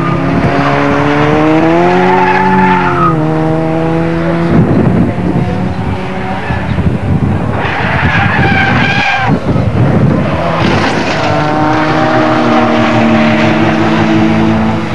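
Racing car engines at high revs, their pitch rising and falling as the cars pass, with tyres squealing and skidding through the middle stretch.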